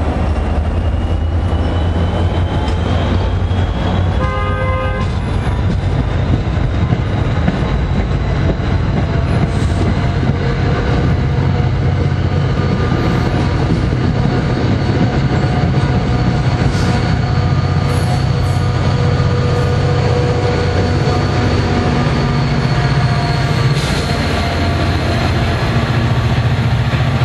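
NJ Transit diesel commuter train passing, with a steady low engine rumble and rail noise. A short horn toot sounds about four seconds in.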